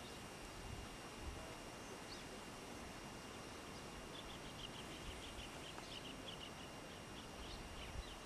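Faint outdoor ambience: a steady hiss with a thin, steady high tone, and a small bird chirping in quick short notes from about four seconds in. A few soft low bumps sit underneath.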